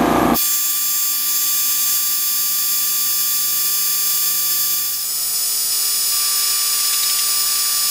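Epilog Helix 75-watt laser cutter etching wood, with its exhaust vacuum and air assist pump running: a steady machine hum with many high whining tones. The sound changes abruptly from a lower rumble a moment in, and its tone shifts again about five seconds in.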